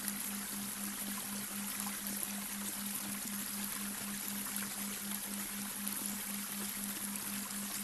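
Babbling brook running steadily, with a low hum layered in that pulses about four times a second: a synthesized delta-wave tone.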